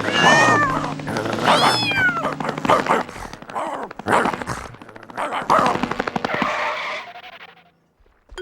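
Cartoon cats yowling and screeching in a fight, with falling wails and a din of knocks and scuffling that fades out about seven seconds in.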